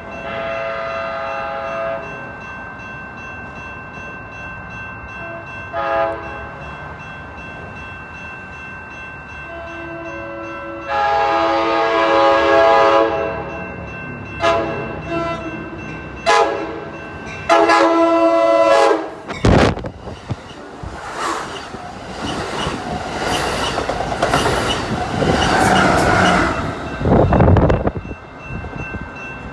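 Amtrak Pacific Surfiner train's multi-tone air horn sounding a horn show for trackside fans: a long blast, a short toot, another long blast, then a run of short blasts. The train then passes close by with a loud rush and clattering of wheels on the rails.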